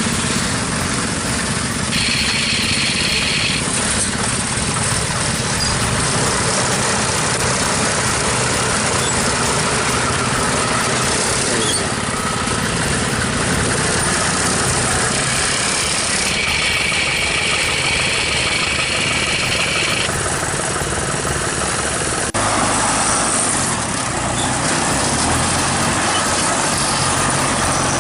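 Farm machine engine running steadily. A higher hiss joins it briefly about two seconds in and again for several seconds in the middle, and the sound changes abruptly about 22 seconds in.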